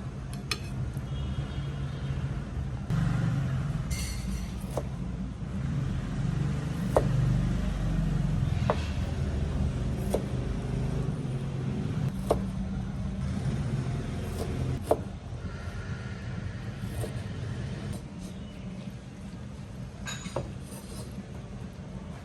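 A steady low mechanical rumble, swelling louder for a stretch in the middle, with a sharp tap or knock every couple of seconds.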